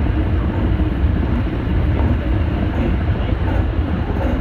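Tsukuba Express electric train running at speed, heard from inside the front car: a steady low rumble of the running train on the rails.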